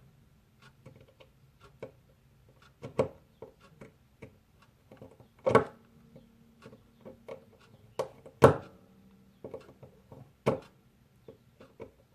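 Small irregular clicks and taps of a precision screwdriver and a Fitbit Blaze smartwatch being handled while the tiny T3 Torx screws on its back are tightened, with a few louder knocks of the watch or tool against the table, over a faint low hum.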